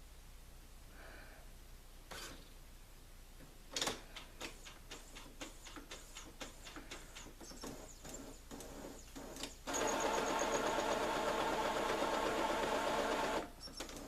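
Brother inkjet printer running its print-head cleaning cycle: a run of clicks and taps from the mechanism, then about ten seconds in a loud, steady motor whir that stops briefly near the end and starts again.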